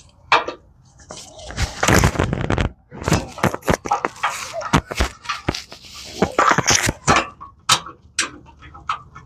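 Clattering and scraping as tools and parts are handled under a pickup truck during an oil change: a quick run of knocks and clicks, with a longer scrape about two seconds in.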